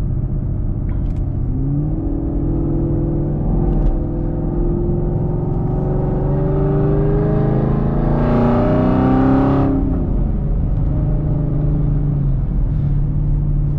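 Camaro SS's 6.2-litre V8 through Kooks headers and a Borla ATAK exhaust, heard from inside the cabin while driving. The engine note climbs steadily under acceleration for several seconds and is loudest at about eight to ten seconds in, then drops back to a steady cruising drone.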